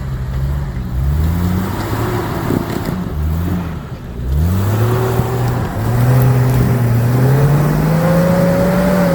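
Off-road rock crawler's engine revving in short bursts, then revved up about four seconds in and held at high revs, its pitch creeping slowly upward.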